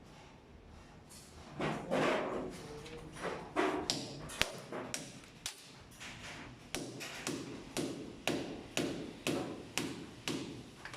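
Repeated strokes of hand-tool work, each a knock with a short scrape, irregular at first and then settling into a steady rhythm of about two a second.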